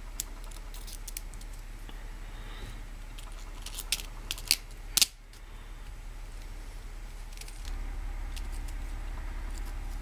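Small 5x11x4 mm steel ball bearings and a screw being handled and fitted into a 3D-printed plastic wheel assembly: light handling noise, with a few sharp little clicks about four to five seconds in.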